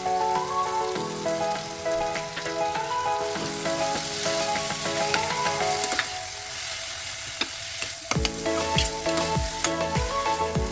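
Food sizzling and frying in a pan, under background music with a melody; a deep, regular beat comes in near the end.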